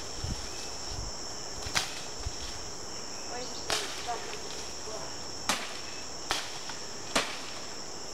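Machete strokes cutting through cane and bamboo stalks: about five sharp chops, a second or two apart, over a steady high buzz of jungle insects.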